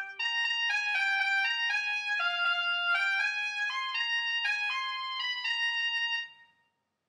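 Music notation software playing back a solo B-flat trumpet part with a synthesized trumpet sound: a quick run of single melody notes with no other parts. It fades out about six seconds in.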